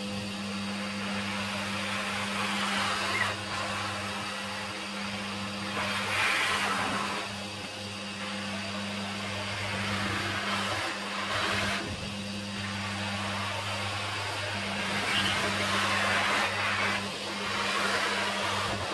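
Henry cylinder vacuum cleaner running with a steady motor hum, its hose nozzle drawn along model railway track to suck up dirt from between the rails. The rush of air swells and dips every few seconds as the nozzle moves over the track.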